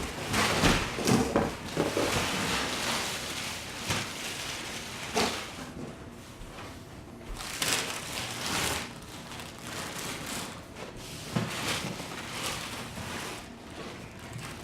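Irregular handling noises as the recliner's base is unpacked and moved about: scraping and rustling swishes with a few sharper knocks.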